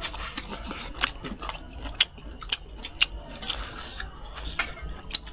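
Sharp, irregular clicks and taps of chopsticks and tableware while eating, a couple each second.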